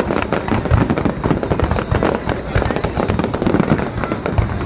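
Fireworks going off in rapid, continuous bangs and crackles, many overlapping reports a second.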